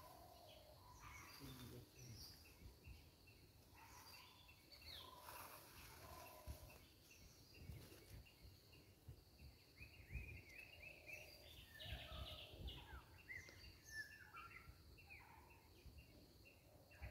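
Faint outdoor ambience of many small birds chirping and calling, with insects, busiest about two-thirds of the way through.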